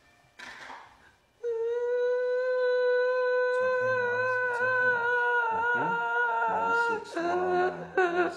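A woman's long moaning cry, preceded by a sharp intake of breath, held at one steady pitch for about five seconds and then dropping lower into sobbing. She is in pain from a stiff person syndrome spasm attack.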